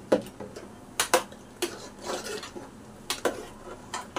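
Metal spoon clinking and scraping against the rim and side of a pressure cooker as curry is stirred: a handful of sharp clinks at irregular intervals, some in quick pairs.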